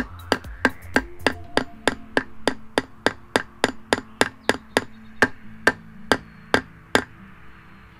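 Hammer tapping on the cast-aluminium differential case of a Honda Pioneer 520, a steady run of sharp strikes about three a second that stops near the end. The taps drive the case halves apart a little at a time, since they are held by dowels or a press fit.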